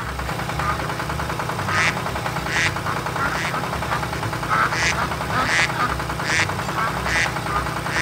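Duck quacks repeating about once a second over a steady low tractor engine running.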